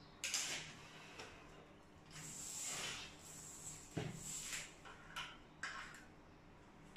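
Faint rustling and scraping with a few light clicks and knocks, as a chrome hand shower and its flexible metal hose are handled and set into a wall-mounted shower holder.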